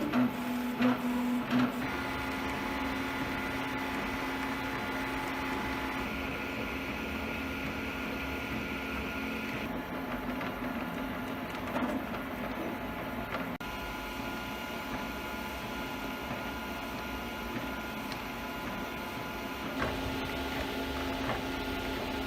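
FDM 3D printer running a print: its stepper motors whine in several steady tones that change pitch every few seconds as the print head's moves change, over a steady hiss. A few short clicks in the first two seconds.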